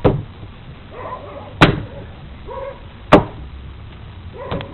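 Hammer smashing a giant tomato on a table: three hard blows about a second and a half apart, then a lighter knock near the end.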